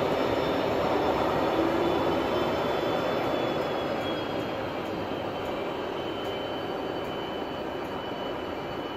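Amtrak Capitol Corridor train with a Siemens Charger diesel locomotive at the trailing end, pulling away: a steady rumble of running gear and rails that fades as it recedes, with thin high whines sliding slowly lower.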